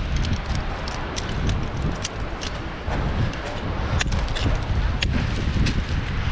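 Wind buffeting the microphone in a steady low rumble, with many irregular sharp clicks on top.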